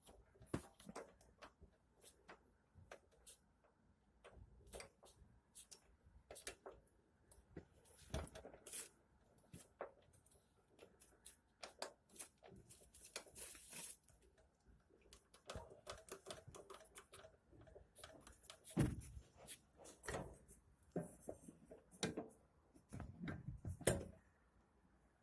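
Scattered light clicks, taps and knocks of hand work on metal parts at irregular intervals, with no machine running. The loudest knocks come about 19 and 24 seconds in.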